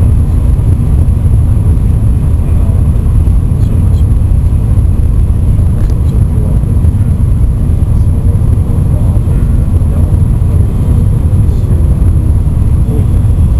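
Steady, loud low rumble inside the passenger cabin of an N700-series Shinkansen train running at speed.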